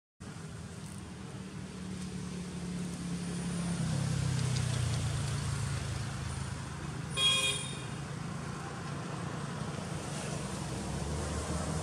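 Low rumble of a motor vehicle running, swelling and then easing as if passing. A single short horn toot a little past the middle is the loudest sound.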